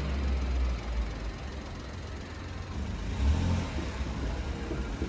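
A car on the move with loose wheel nuts, giving an irregular low clunking (gotong-gotong) over a deep rumble. It is the sign of lug nuts that have worked loose on a wheel.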